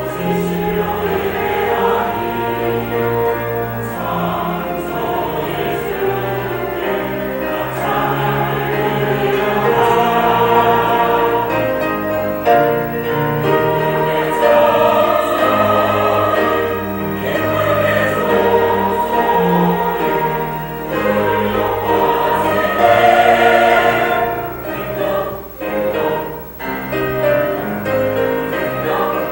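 A church choir singing a sacred anthem, many voices in sustained chords, with a couple of brief dips between phrases near the end.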